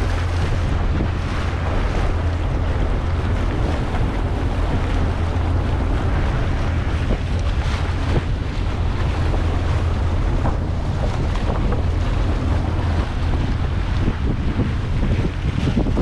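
Boat motor running steadily under a small boat under way, with wind buffeting the microphone and water noise.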